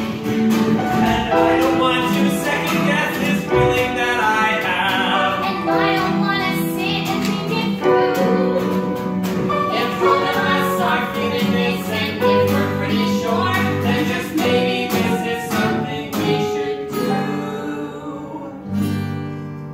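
Musical-theatre song: an acoustic guitar strummed with held notes of singing over it, easing off near the end.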